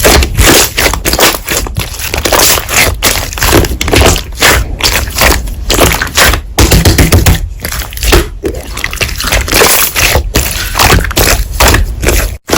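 Slime being squeezed and pressed by hand, giving a dense run of crackling, popping clicks with short gaps.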